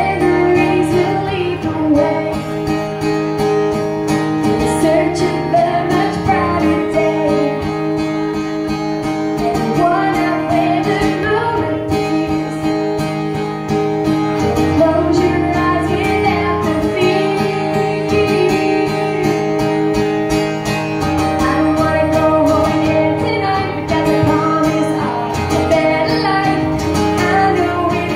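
A woman singing live into a microphone while playing her acoustic guitar: one voice and one guitar.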